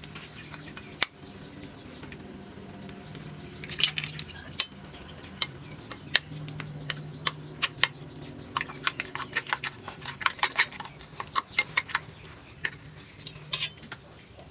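Metal spoon clinking against a porcelain bowl while beating eggs, in quick irregular runs of taps, busiest in the second half.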